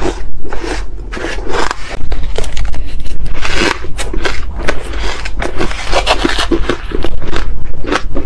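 Close-miked crunching of mouthfuls of soft shaved ice, mixed with a metal spoon scraping and scooping through the ice in the bowl: a dense run of crisp crackles with no pauses.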